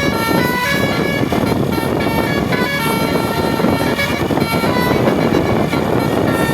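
Bus's basuri telolet musical air horn playing a tune of quick stepped notes over the rumble of the bus. The notes are busiest in the first half.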